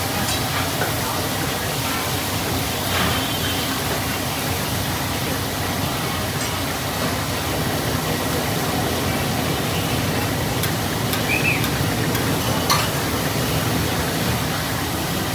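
Steady sizzle of fish deep-frying in hot oil.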